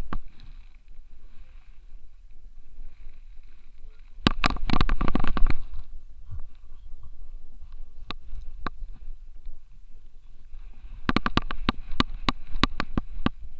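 An action camera strapped to a French Bulldog's harness knocking and rubbing as the dog moves, in two bursts of rapid clicks and thumps, one about four seconds in and one near the end, with scattered ticks between.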